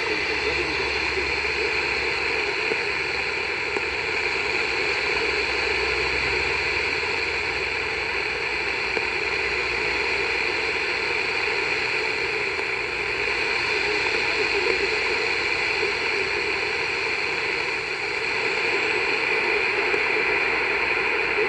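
Shortwave static and hiss from a Tecsun GR-168 portable radio's speaker, tuned to the WWV time signal station on 15 MHz, with the weak signal under the noise and a steady low tone running through it.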